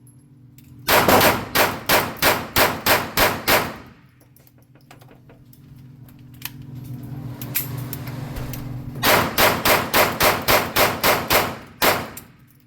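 Gunshots fired in quick succession: a string of about nine shots at roughly three a second, a pause of about five seconds, then a second string of about nine shots and one last shot near the end.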